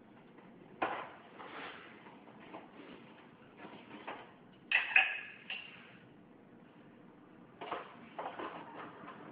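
Dishes and the dishwasher rack being handled: scattered clinks, knocks and rattles, loudest in a short cluster about five seconds in.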